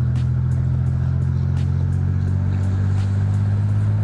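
1986 Buick Grand National's 3.8-litre turbocharged V6 cruising at a steady speed, heard from inside the cabin as a steady low exhaust drone.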